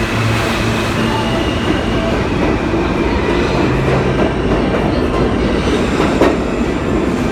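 R160 subway train moving through the station: a steady, loud rumble of wheels on rail with faint high steady tones, and one sharp click about six seconds in.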